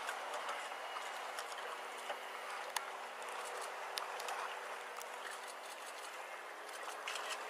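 Boat motor idling steadily with a low hum under a wash of water noise, and a few faint clicks.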